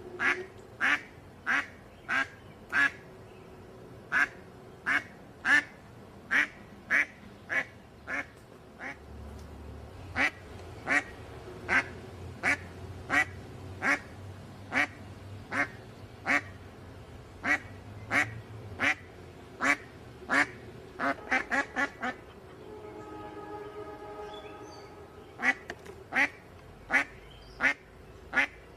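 A duck quacking over and over, short loud quacks about one every half second to second, with a quick run of quacks about three-quarters of the way through. The quacking then pauses for a few seconds, with a faint held tone, before it starts again.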